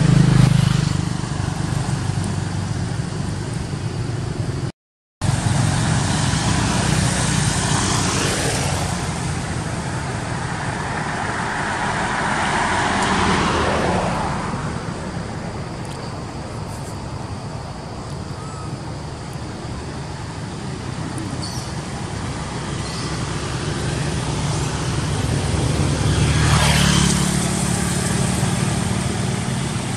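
Road traffic: a steady motor-vehicle hum, with one vehicle swelling past about halfway through and another near the end. The sound cuts out completely for a moment about five seconds in.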